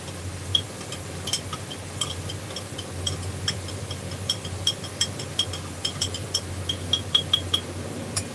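A metal spoon clinking and scraping against the inside of a small glass jar as food is scooped out: many light, irregular clinks, a few a second, coming faster and louder near the end. A steady low hum runs underneath.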